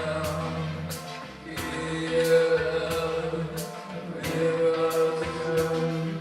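Music: a song with singing over a steady beat, about three beats every two seconds.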